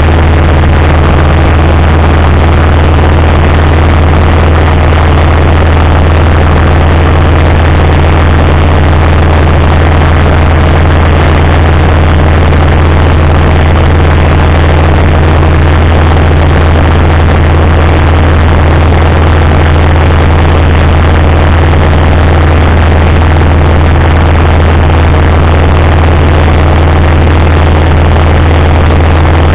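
Cessna 140's four-cylinder air-cooled engine and propeller droning steadily in flight, heard from inside the cabin: loud and unchanging, with a strong low hum under a wash of engine and wind noise.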